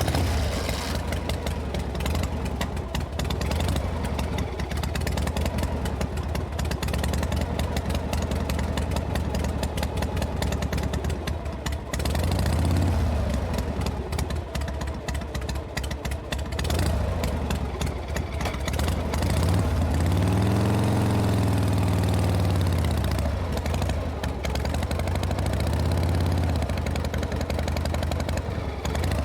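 Harley-Davidson Panhead V-twin motorcycle engine running on a ride, with a fast, uneven firing beat. Its pitch rises and falls back about 12 seconds in, again around 20 seconds in and near 26 seconds, as the engine revs up and eases off.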